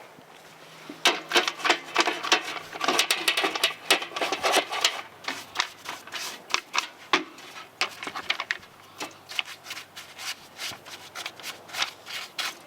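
A brush scrubbing the grimy plastic top cover of a Poulan Wild Thing chainsaw in quick, irregular strokes.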